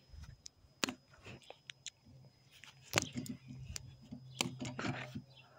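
Plastic turnball ball being struck by a mesh plastic racket as it swings around its pole: sharp knocks, one every second or two.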